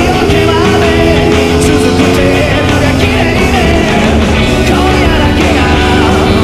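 Rock music with a sustained melody line, playing loudly and steadily.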